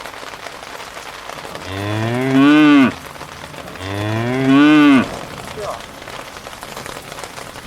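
A cow mooing twice: two long calls, each rising and then falling in pitch, over a steady hiss.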